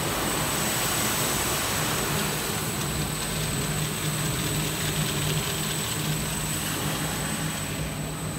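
Brush sanding machine for wood doors running, its rotating sanding brushes and drive motors giving a steady whirring noise with a low hum and a thin high whine.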